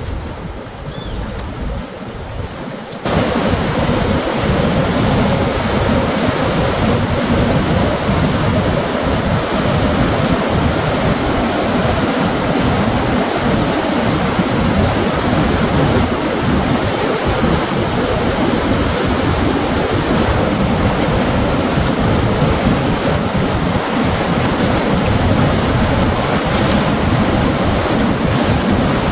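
Rushing water of the Mogi Guaçu river's falls and rapids, running high after heavy rain: a steady, loud, even roar. About three seconds in it suddenly becomes much louder; before that the rush is softer, with a few faint high chirps.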